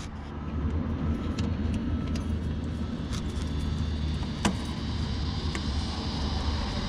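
Hand tools clicking and knocking against metal under the front of the pickup: a few scattered short clinks, the clearest about four and a half seconds in, over a steady low rumble.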